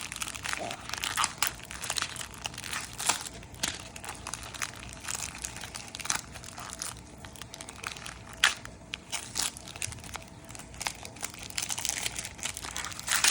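Plastic packaging crinkling and crackling in quick, irregular bursts as a small toy is unwrapped by hand.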